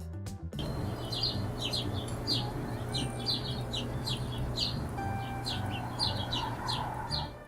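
Hummingbird chirping: short, high, squeaky chirps about two or three a second, over a steady low hum.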